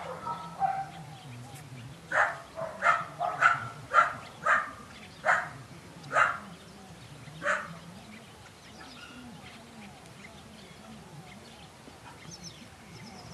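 A dog barking: about eight short, sharp barks over some five seconds, starting about two seconds in, then stopping, leaving a faint background.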